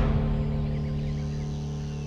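Background music: a final held chord fading out.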